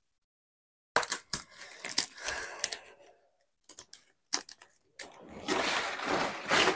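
Dry sal leaves crackling and rustling as they are handled and folded into a leaf plate, with irregular crisp clicks from about a second in and a denser, continuous rustle over the last two seconds.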